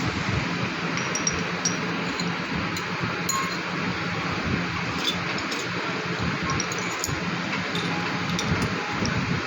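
Light metallic clinks and short ringing tinks, scattered irregularly, over a steady mechanical hum and hiss.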